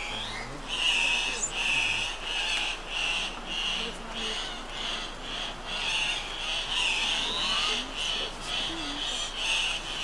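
Andean cock-of-the-rock males calling at their display lek: a steady run of harsh, raspy squawks, about two a second.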